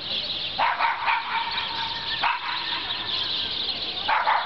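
Small white dog barking in short, sharp yips: a quick cluster about half a second to a second in, one a little after two seconds, and another near the end, over a steady hiss.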